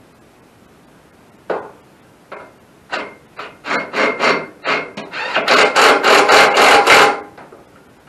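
Metal parts scraping and knocking against the band sawmill head as a part is fitted by hand: single strokes at first, quickening into a fast, continuous rasping run that stops about seven seconds in.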